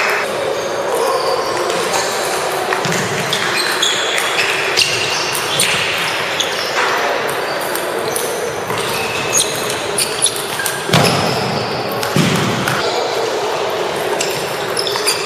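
Table tennis balls clicking off paddles and tables, irregular and overlapping from several matches at once, echoing in a large hall over steady background chatter.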